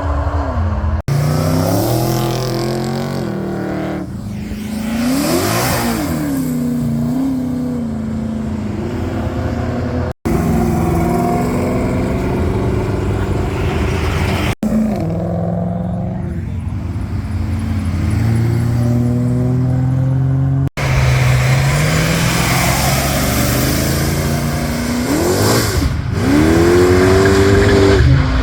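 Muscle-car engines running and revving as the cars drive off and past, in several short clips cut together. One car passes about five seconds in, its pitch rising then falling, and another accelerates hard near the end with a rising pitch.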